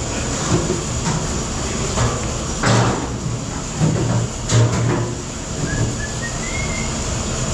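Commercial dish room noise: steady running with clanks of dishware about three, four and four and a half seconds in, and a faint rising squeal near the end.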